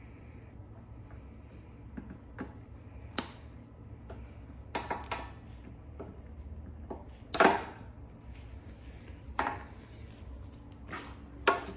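Hand cutters snipping plastic zip ties off the e-bike's cables: a few sharp, separate clicks and snaps over a steady low hum, the loudest about seven seconds in.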